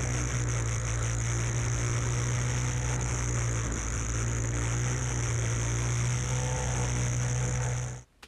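Two-stroke Arctic Cat snowmobile engine running at a steady speed while riding over snow, with a steady high hiss over the engine note. It cuts off abruptly near the end.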